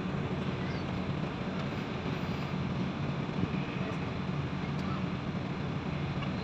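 Steady low drone of a passenger ship's engines while under way, over a steady rushing hiss.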